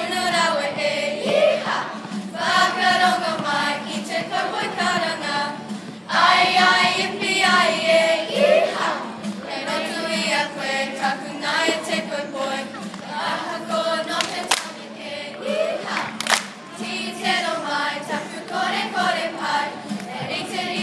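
Children's kapa haka group singing and chanting in unison, mostly girls' voices; the singing grows louder about six seconds in. Two sharp knocks sound about two-thirds of the way through.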